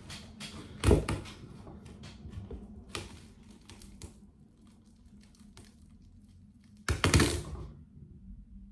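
Kitchen knife cutting through a thick-rinded watermelon on a cutting board: crisp cracking and crunching cuts, the rind and flesh cracking as they part. A louder, longer crunching burst comes about seven seconds in as the melon splits open.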